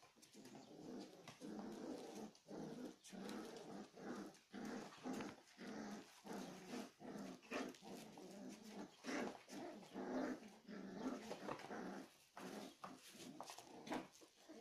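Puppies growling in play as they pull against each other in a tug-of-war over a toy, a nearly unbroken run of short growls.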